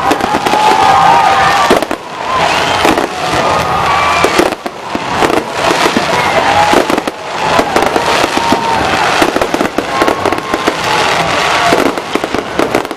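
Fireworks display: a dense, steady run of loud bangs and crackling, with brief dips around two and four and a half seconds in.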